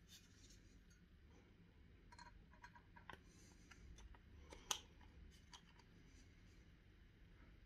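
Faint handling noise from a Noctua NH-U12S chromax.black CPU tower cooler being turned over in the hands: scattered light clicks and taps as fingers work at the clear plastic cover on its base, with one sharper click about halfway through.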